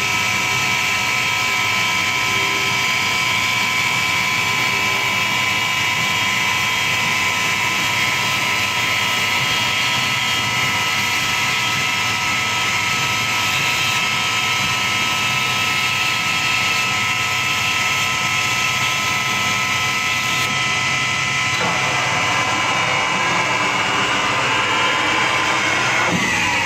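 CNC wood lathe running: a steady, high machine whine made of several held tones. About three-quarters of the way through, the lower tones drop out and it turns rougher and noisier.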